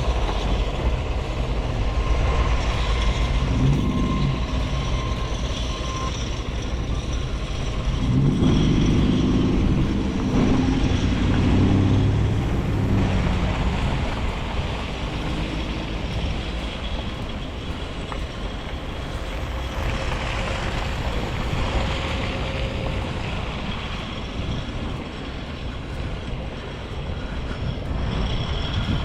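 A motor vehicle's engine running and passing by, loudest about eight to twelve seconds in, over a steady low outdoor rumble.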